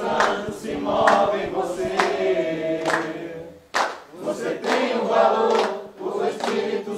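A group of people singing together in unison, holding long notes over a sharp beat that comes about once a second.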